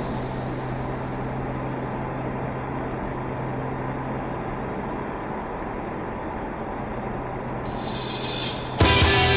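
Porsche cabin noise at steady cruising speed: a steady engine hum with road and tyre noise. Near the end, loud rock music starts suddenly.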